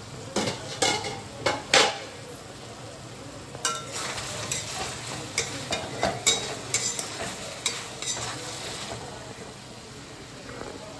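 Chicken frying in oil and sizzling while a spatula stirs and scrapes it around the pan in short strokes: four quick strokes in the first two seconds, a busier run from about four to nine seconds, then only the sizzle.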